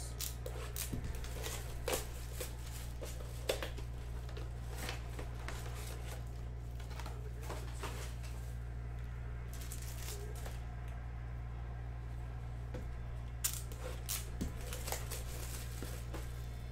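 Hands opening a trading-card box and handling foil card packs and plastic wrapping: scattered crinkles, rustles and light clicks, busiest in the first couple of seconds and again near the end. A steady low hum sits under them.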